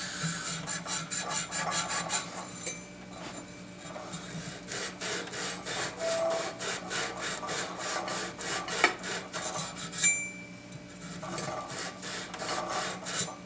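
Abrasive sand cloth scrubbed back and forth on copper pipe in quick, even strokes, cleaning the copper bright before soldering. A couple of sharp clicks come near the end.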